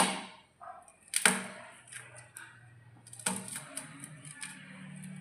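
Three sharp knocks or clatters, at the start, about a second in and about three seconds in, each with a short ringing tail, with lighter clicks between them over a low steady hum.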